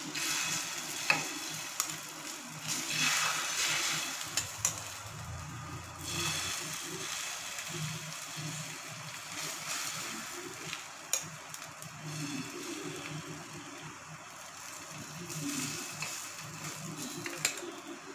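Beaten egg and chopped-vegetable batter sizzling on a hot flat griddle (tawa) as it is spooned over bread and spread out. The sizzle swells and fades, with a few sharp clicks of the steel spoon against the pan.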